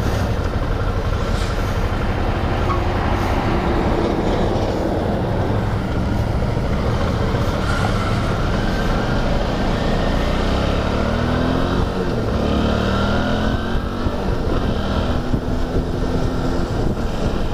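Motorcycle engine running under way as the bike pulls onto the highway and gathers speed, under a steady rush of noise; the engine pitch climbs several times in the second half as it accelerates through the gears.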